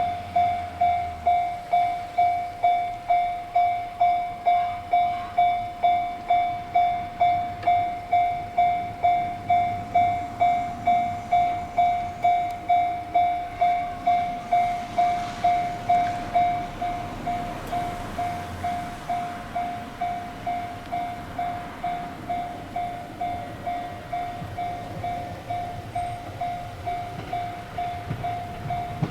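Japanese railway level-crossing alarm ringing its steady, even ding-ding, about two strikes a second, on one unchanging tone. It gets quieter about halfway through, and an approaching train's rumble rises under it near the end.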